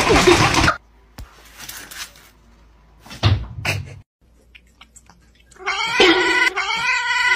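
A cat meowing near the end, a pitched call that bends up and down. It follows a loud noisy rush that cuts off under a second in, and a few soft knocks.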